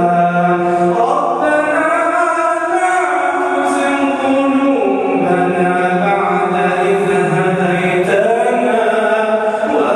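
A man chanting the Quran in a melodic, tajweed-style recitation into a microphone. He draws out long held notes whose pitch slides slowly up and down, with no pause.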